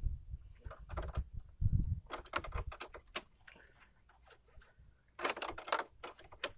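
Small metal parts clicking and clinking in short clusters as a battery quick-disconnect is handled and fitted on a car battery terminal, with a few dull knocks in the first two seconds.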